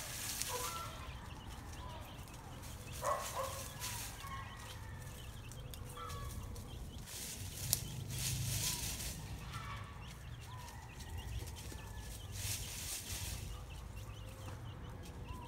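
Hen and chicks calling softly: many short, quiet clucks and calls, with dry leaves rustling now and then as they scratch through the leaf litter, and one sharp click about halfway through.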